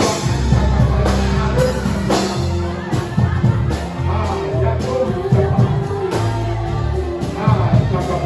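Live worship music from a band, with a steady bass line and regular drum beats, and a congregation singing along in a large hall.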